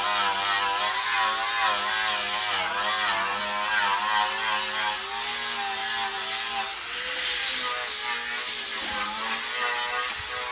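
Handheld angle grinder running against a steel lawn tractor mower deck, grinding the metal down. Its whine wavers up and down in pitch as the disc is pressed in and eased off, and it stops abruptly right at the end.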